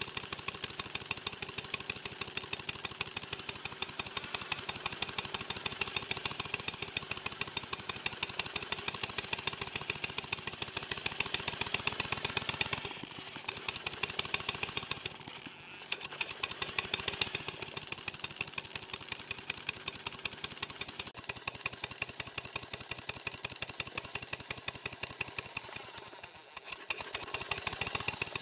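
Model steam engine running on compressed air, with a rapid, even chuffing of exhaust beats while its speed is held by a working Watt centrifugal governor. The sound drops out briefly twice about halfway through and dips again near the end, then comes back.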